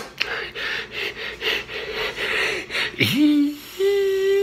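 A man breathing hard in quick, noisy breaths, then about three seconds in a long, high-pitched vocal cry that holds one pitch.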